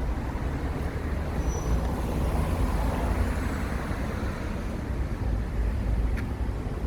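City road traffic: cars and buses passing as a steady din with a deep low rumble, and a brief high-pitched tone about one and a half seconds in.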